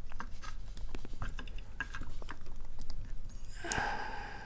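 Small metal clicks and scratches of a tool working inside a Sesamee 936 padlock during disassembly. A louder, slightly squeaky scrape comes about three and a half seconds in.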